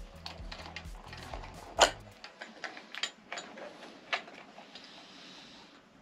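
Irregular light clicks and knocks of small parts being handled and fitted onto a bicycle handlebar, with one sharper knock about two seconds in.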